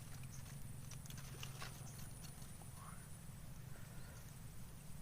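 Faint outdoor ambience with scattered soft clicks and a steady low hum, and a short rising chirp about three seconds in.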